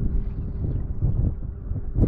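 Wind buffeting the microphone, a low rumble that rises and falls.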